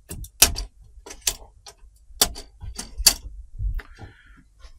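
Sharp clicks and taps from handling the TV's frame and panel parts during disassembly, the four loudest about a second apart, with a short squeak near the end.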